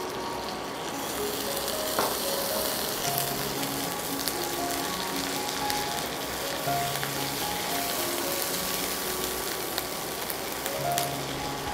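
Chopped onions and ginger-garlic paste sizzling in hot soybean oil in a nonstick pan while a silicone spatula stirs them. The sizzle grows louder about a second in, with a light clack of the spatula against the pan, over soft background music.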